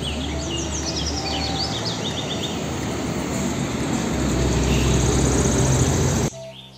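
Hino tanker truck's diesel engine and tyres running as it drives past on a street, the rumble growing louder toward the end, with birds chirping during the first two seconds. The sound cuts off abruptly near the end.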